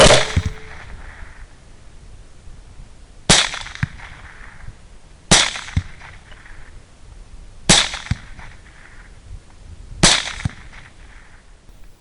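Five rifle shots, one every two to three seconds, each a sharp crack with a short echo after it.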